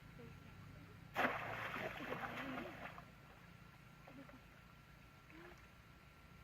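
Water splashing in a sudden burst that starts about a second in and lasts about two seconds.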